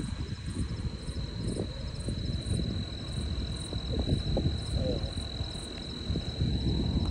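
Night insects calling: a steady high-pitched trill, with a fainter higher chirp pulsing about twice a second. Under it is a low, uneven rumble of wind and handling noise on the microphone.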